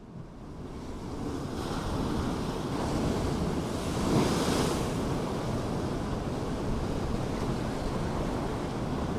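Steady rushing noise of wind and surf, fading in over the first two seconds and swelling briefly about four seconds in.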